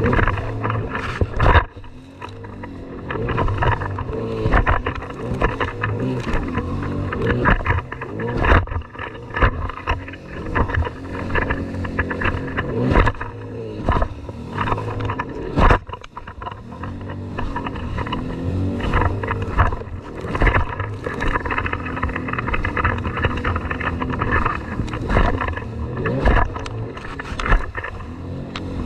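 Jet ski engine running at speed, its pitch rising and falling with the throttle. Repeated thuds and splashes come from the hull hitting the waves.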